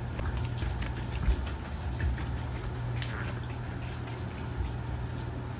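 Small dogs moving about, light claw taps and pattering on the floor, over a steady low hum.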